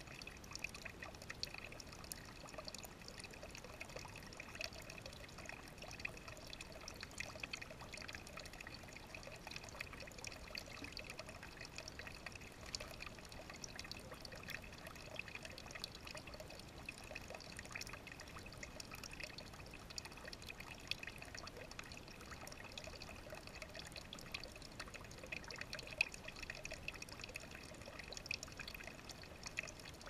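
Faint trickling water in a shallow stone bird bath, with many small irregular drip-like ticks over a steady hiss.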